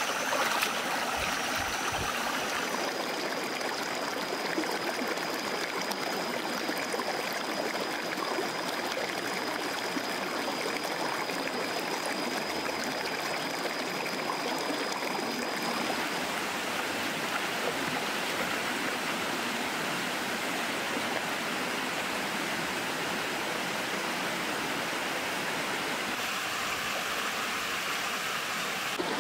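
Shallow stream rushing steadily over rocks and a low rock cascade.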